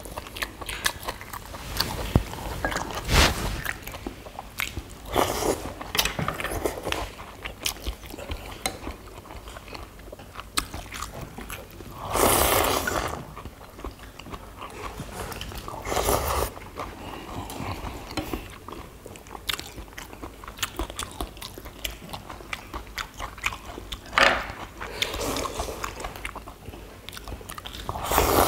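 Several people eating close to the microphone: chewing and crunching, with small clicks of chopsticks and spoons against ceramic bowls, and a few louder, second-long slurps of soup.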